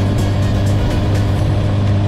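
Honda CB1000R's inline-four running steadily through a G&G exhaust with the baffle fitted, with music playing over it.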